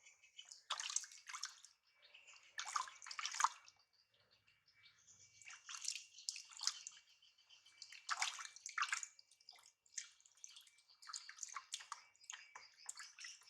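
Water splashing and pouring in irregular bursts as a baby is washed under a shower.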